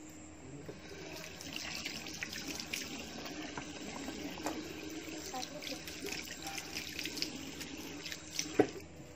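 Tap water running into a kitchen sink, with small clinks as things are rinsed, then a single sharp knock near the end as the water stops.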